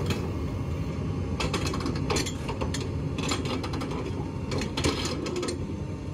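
A heavy engine runs steadily with a low drone, likely the excavator lifting the buggy onto the trailer. From about a second and a half in to about five and a half seconds, rapid metallic clicking and rattling comes in clusters, like chains or rigging under load.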